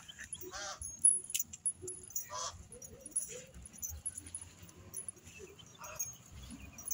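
Caucasian–German Shepherd mix dog giving three short whines, with its metal chain leash clinking sharply about a second in.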